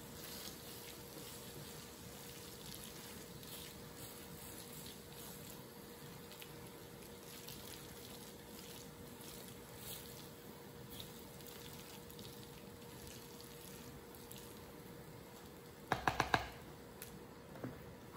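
Serving spoon scooping moist chicken pot pie filling into a pie crust, with faint wet scrapes and squishes over a faint steady hum. Near the end come four or five quick sharp knocks as the spoon is rapped against the mixing bowl, then one softer knock.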